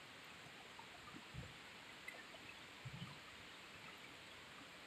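Faint, steady rain, an even hiss with scattered drips, and a few soft low thumps about a second and a half in and again around three seconds.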